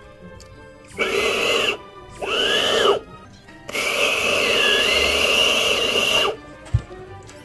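Beatboxed foley effects made by mouth: three noisy vocal sounds, two short ones about a second apart, then a longer one of about two and a half seconds, each with a pitch that arcs up and back down. Faint background music runs underneath.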